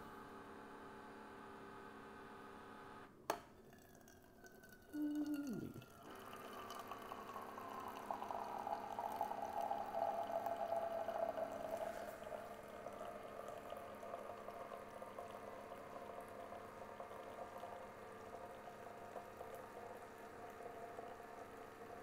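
Keurig K-Compact single-serve brewer dispensing hot chocolate into a stainless steel mug. A click comes about three seconds in. From about six seconds the hot liquid streams and splashes into the mug over the brewer's steady hum.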